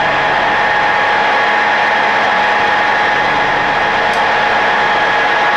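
Machine-tool spindle running steadily with a boring head, with a steady whine over even mechanical noise, while it bores a bushing pressed into an LT230 transfer-case housing out to finished size under hand feed. A brief faint tick about four seconds in.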